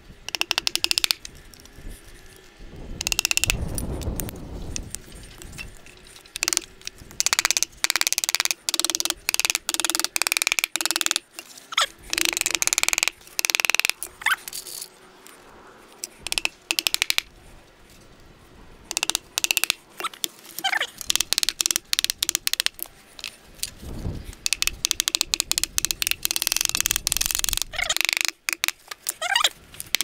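A hammer tapping a sheet-lead roof down over the rim of a log, in quick runs of sharp taps broken by short pauses.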